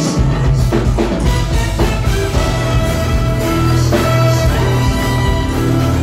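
Loud live R&B/funk band playing: trumpet over electric guitar, keyboards, bass and drum kit.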